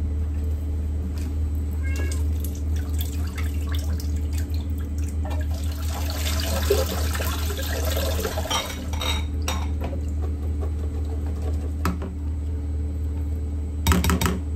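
Tap water running over canned sweetcorn in a plastic colander for about four seconds through the middle. It comes after small metal clinks of a tin can handled with a spoon, and near the end a rapid clatter as the corn is tipped from the colander into a bowl. A steady low hum runs underneath.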